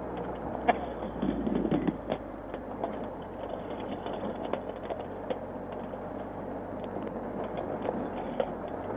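Motorcycle engine running steadily under a haze of noise, with scattered light clicks and ticks, picked up by a helmet camera microphone.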